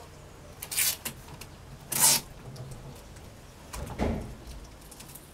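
Adhesive tape pulled off its roll in two short bursts about a second apart while newspaper is taped down over a beehive's top, then a duller handling sound about four seconds in.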